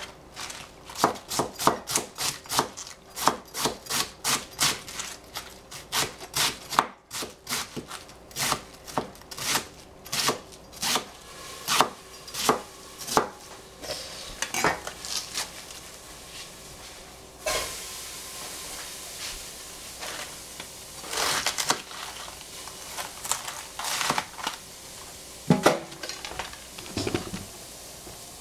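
Kitchen knife chopping cabbage on a cutting board, sharp regular strokes about two a second for roughly the first half. Then a steady sizzle sets in, with scattered clatter of utensils and pots.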